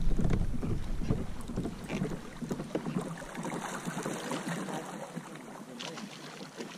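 Small splashes and trickling of water against a moving kayak's hull. Wind buffets the microphone at first and dies away after about a second.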